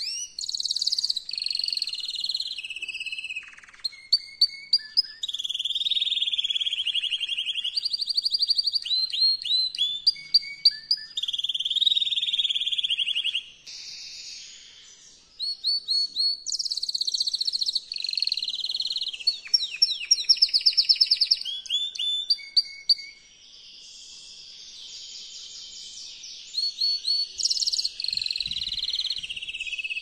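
Male canary singing an excited, continuous breeding song, a chain of trills and fast rolls of repeated notes that changes phrase every second or two, with softer passages about halfway through and again after about 23 seconds. It is the agitated song used to bring a female canary into mating condition.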